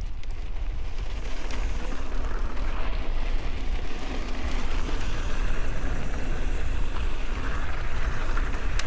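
Wind buffeting the microphone over the steady rumble and crunch of mountain bike tyres rolling on a dirt and gravel trail, with a few sharp clicks and rattles from the bike.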